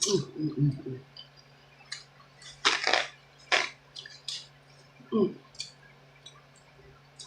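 Close-up wet eating sounds: a person chewing and smacking on sauce-covered seafood, with a few sharp wet clicks near the middle and two short voiced hums, one at the start and one about five seconds in.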